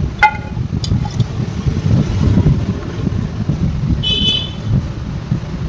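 Low, uneven background rumble, with a sharp metallic clink near the start and a brief high-pitched ring about four seconds in.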